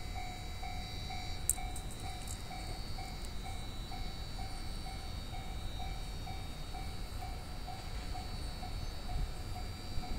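Railway level-crossing warning bell ringing steadily, about two dings a second, the sign that a train is approaching.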